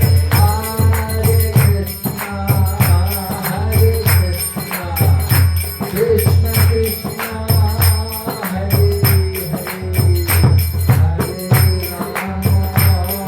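Devotional kirtan: a voice singing a melody over a steady rhythm of a deep hand drum and small jingling hand cymbals.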